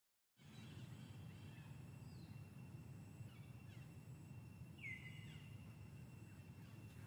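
Faint forest ambience that cuts in abruptly about half a second in: a steady high insect drone over a low rumble, with a few faint short bird chirps and one slightly louder rising chirp about five seconds in.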